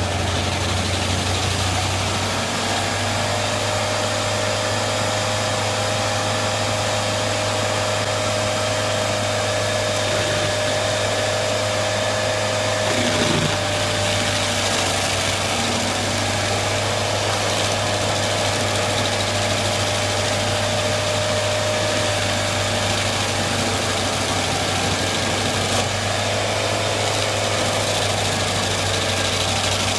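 A machine's engine running steadily at an even speed, with a deep hum and a fainter, higher whine over it.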